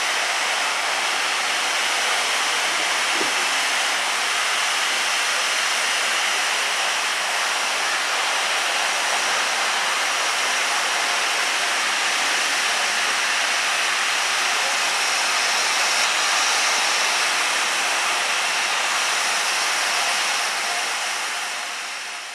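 Steam locomotive standing at the platform and blowing off steam through its safety valves: a loud, steady hiss.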